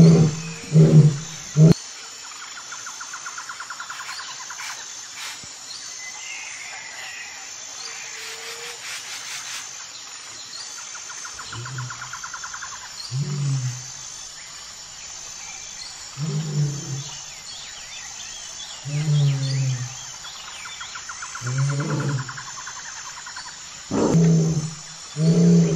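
A large animal giving short, low calls, several close together at the start, then again every two to three seconds from about halfway through. In between, a quieter stretch holds insect trills and bird chirps.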